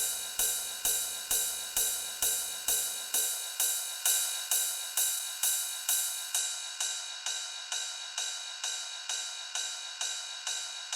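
A techno hi-hat or cymbal loop playing on its own, a bright metallic hit about twice a second. About three seconds in its lower body drops away, leaving only the thin, bright top of each hit.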